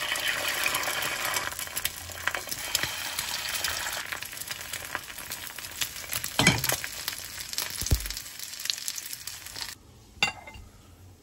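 Eggs frying in a hot pan: a dense crackling sizzle, loudest as the egg first hits the pan, with a couple of dull knocks partway through. It cuts off abruptly near the end, and a single short clink follows.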